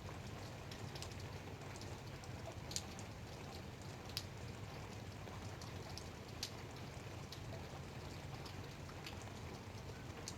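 Light rain falling: a steady soft hiss with scattered individual drops ticking at irregular intervals, a few of them louder.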